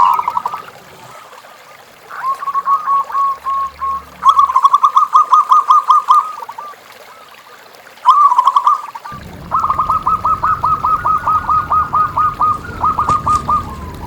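Zebra dove (perkutut) cooing: several phrases of rapid, evenly repeated notes, each phrase a few seconds long with short pauses between. The loudest phrase comes a few seconds in.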